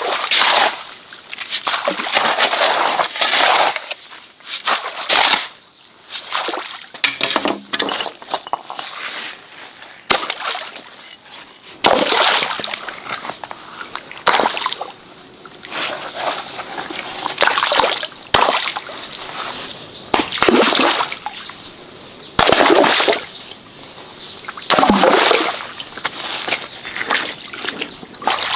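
Water in a shallow stream splashing and sloshing in irregular bursts every second or two.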